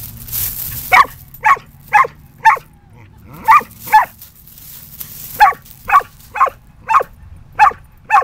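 Keeshond barking at a feather: short, sharp barks about two a second, in three runs of several barks with brief pauses between.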